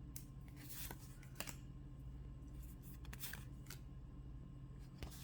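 Pokémon trading cards being slid and flipped one behind another by hand, faint, with a few short swishes of card on card.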